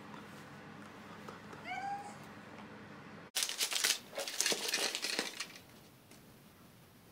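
A short, rising, meow-like squeal about two seconds in, then paper packaging rustling and crackling loudly for about two seconds as a gift is unwrapped.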